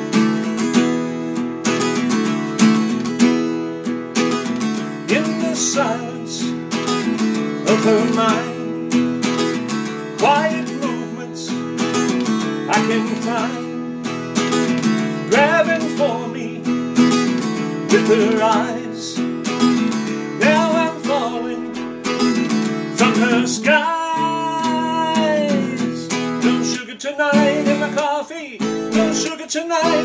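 Acoustic guitar strummed in a steady rock rhythm, with a man singing over it from about five seconds in; later on he holds one long note.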